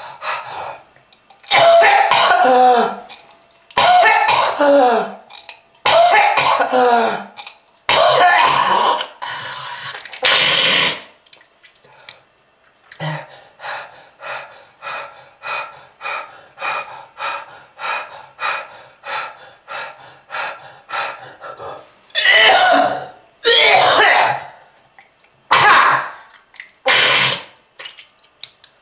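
A smoker's harsh hacking cough with throat clearing. Long loud coughing fits come at the start and again near the end, and between them runs a long string of short hacks about two a second.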